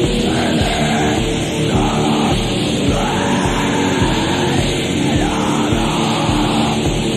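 Raw black metal demo recording: a dense, unbroken wall of distorted guitars and drums, with harsh shrieked vocals coming and going about once a second.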